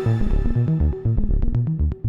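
Moog Subharmonicon analog synthesizer playing a fast step-sequenced pattern of short, pitched bass notes. The bright upper tones fade in the first second, leaving low, dark notes with sharp clicky attacks.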